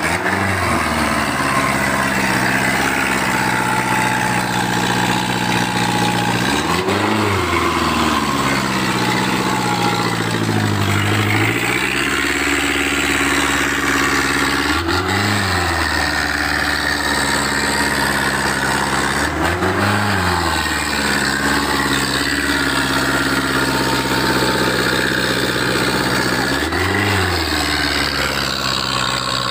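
A heavily loaded 4x4 pickup's engine revs hard about five times, its pitch climbing and falling back each time, with steady running in between. The truck is bogged on a soft, loose-soil climb, with its wheels sinking and spinning.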